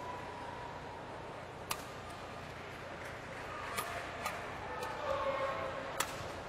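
Badminton rackets striking a shuttlecock during a rally: several sharp hits, irregularly spaced, over the low murmur of an indoor arena.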